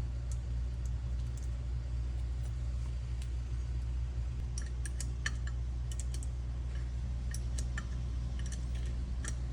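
Light metallic clicks and taps from small starter parts being handled and fitted, scattered and more frequent in the second half, over a steady low hum.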